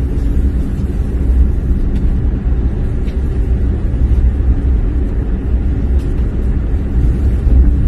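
Steady low rumble of a car driving along a narrow road, engine and tyre noise heard from inside the cabin.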